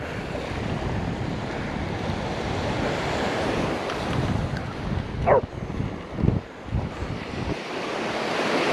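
Surf washing on the beach with wind buffeting the microphone. About five seconds in there is a short squeak that falls in pitch, followed a second later by a couple of low thumps.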